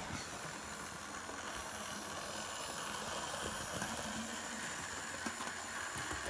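Hornby OO gauge model steam locomotive running on sectional track: a steady whir of its small electric motor and wheels, with a few faint clicks over the rail joints.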